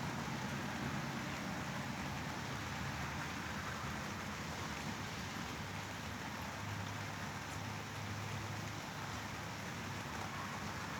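Steady white-noise sleep sound: an even, unbroken hiss with a low rumble underneath.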